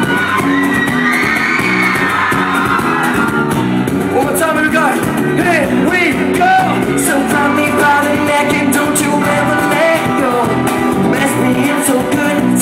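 Live acoustic pop performance: a male singer sings with sliding vocal runs over strummed acoustic guitars and keyboard, with shouts and whoops from the audience.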